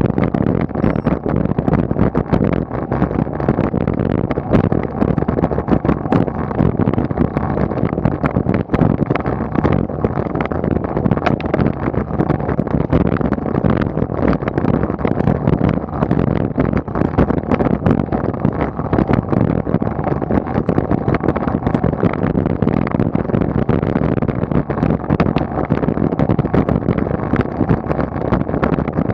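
Road bicycle climbing on asphalt, heard through a bike-mounted camera: a steady rumble of tyres and wind on the microphone, with constant small rattles and ticks from the bike and mount.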